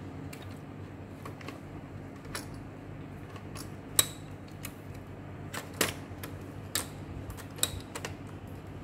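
Irregular small clicks and taps of hands unplugging wire connectors and handling parts inside an opened Epson EB-W01 projector, the sharpest click about four seconds in. A low steady hum runs underneath.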